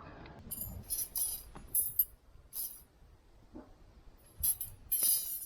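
Small hard items clinking and jingling as gear is handled: half a dozen or so short, light, high-pitched clinks, the loudest cluster near the end.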